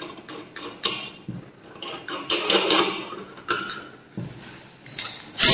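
A thin metal cutting disc and its flange nut being handled and seated on the arbor of a small gemstone cutting and grinding machine: scattered light clicks and metal scraping, with a sharp clank near the end.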